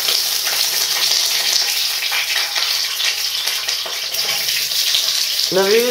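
Oil sizzling in a hot wok: a steady hiss.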